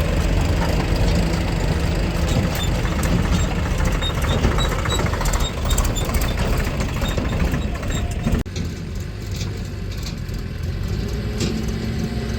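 Heavy diesel engine of a tractor or backhoe loader running steadily; the sound cuts abruptly about eight seconds in to a slightly quieter engine running on.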